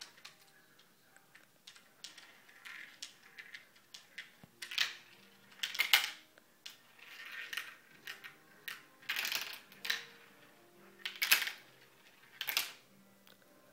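Marbles rolling and clattering down a tall plastic marble-run track: a scattered run of light clicks and rattles, with louder clacks about halfway through and again near the end.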